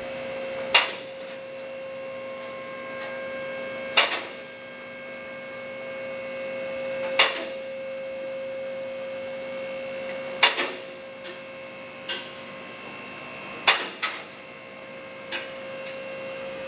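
Four-post car lift rising under its 220-volt hydraulic power unit: a steady motor-and-pump hum. About every three seconds there is a loud metallic clack as the safety locks in the towers drop into each notch, with fainter clicks in between.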